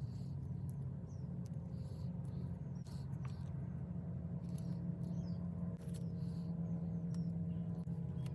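Scattered small clicks and light taps from handling foam sticker pieces and pressing them together, over a steady low hum.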